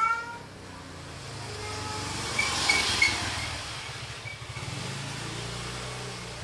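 A low engine hum that swells to its loudest about three seconds in and then eases off, like a motor vehicle passing.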